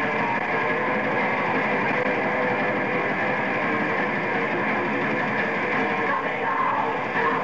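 A melodic death metal band playing live: a dense, continuous wall of distorted electric guitar and band sound, recorded as a muddy audience bootleg.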